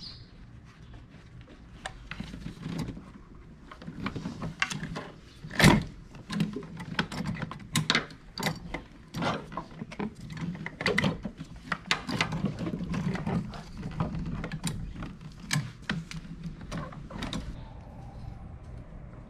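Hand tools and metal parts clicking and knocking irregularly during car repair work, with one louder knock about six seconds in.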